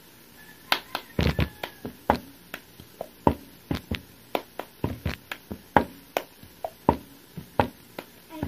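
Hands clapping and a cup being tapped and knocked on a tabletop in the cup-game rhythm, a quick run of sharp claps and knocks starting just under a second in.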